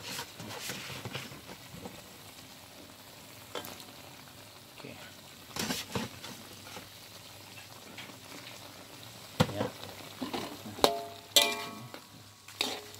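Metal spatula scraping and knocking against an aluminium pot in scattered strokes as squid pieces are stirred, over the steady sizzle of the simmering spiced broth.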